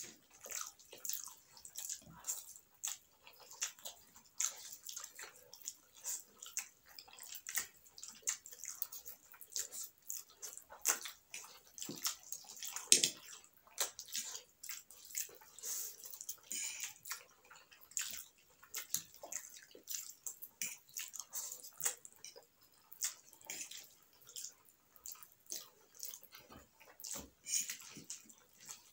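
Close-miked slurping and chewing of chow mein noodles by two people eating with forks: a constant, irregular run of short wet slurps and smacks, the loudest about 13 seconds in.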